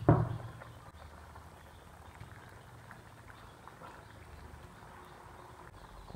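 A glass pot lid knocks against the pan as it is lifted, a short sharp clatter at the very start. After it, curry simmering in the pan with faint bubbling.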